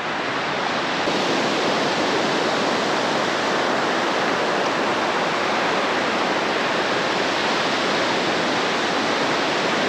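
Steady rushing hiss of water, rising a little in the first second and then holding even, with no distinct events.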